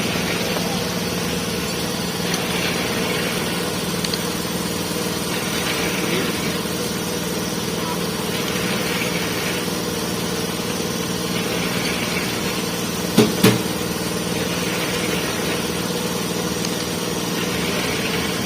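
A steady machine hum, like an engine running, with two sharp knocks close together about two-thirds of the way through.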